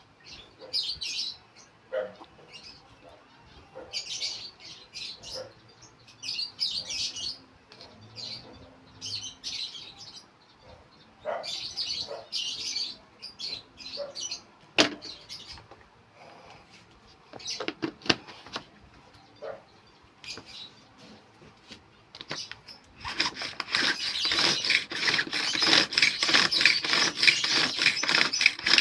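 Pet African lovebirds chirping in short clusters of high chirps, with a few light knocks. About 23 seconds in, a rapid, steady rasping scrape starts and becomes the loudest sound.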